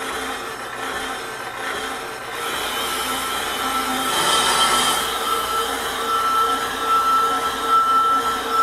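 Atlas brake lathe running with a brake rotor on its arbor, the tool bit cutting the rotor face. A steady high squeal from the cut comes in about halfway through and grows louder near the end, over the machine's steady hum.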